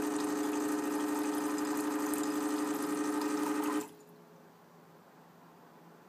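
Rancilio Silvia espresso machine's vibratory pump running at a 50% PWM duty cycle for pre-infusion: a steady hum that cuts off suddenly a little under four seconds in.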